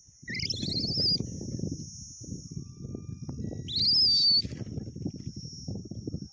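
An orphaned infant monkey crying: two high, rising, wavering cries, one just after the start and a louder one about four seconds in. Under them a hoe scrapes and chops into dry, hard soil.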